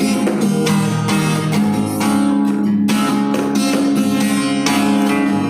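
Instrumental break of a pop ballad backing track: acoustic guitar strumming chords over a sustained bass, with no vocal.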